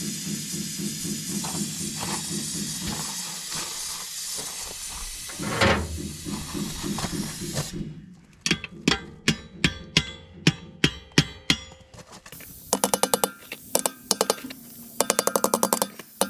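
Compressed air hissing steadily into a large grader tire as it is inflated, stopping about five and a half seconds in. After that come evenly spaced sharp clicks, two or three a second, then quick bursts of rapid clicking near the end.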